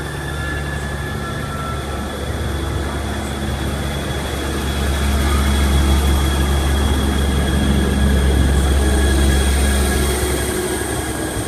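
Class 158 diesel multiple unit pulling away, its underfloor diesel engines running under power with a deep hum and a steady high whine as the carriages pass close by. It grows louder to a peak midway through and eases off near the end.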